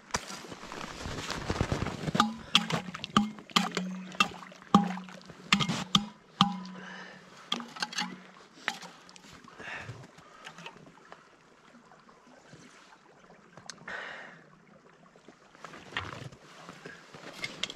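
Water bottle held down in an open hole in a frozen creek, filling: water sloshing and gurgling, with a run of sharp knocks and splashes over the first half, then quieter.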